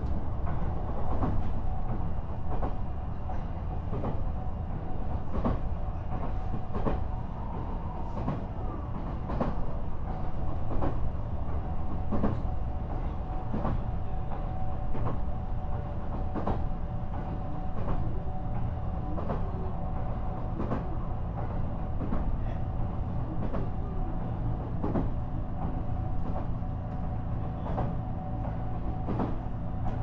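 JR East E129-series electric train car KuMoHa E128-114 running along the line. There is a steady low rumble, a faint steady tone, and wheels clicking over rail joints every second or so.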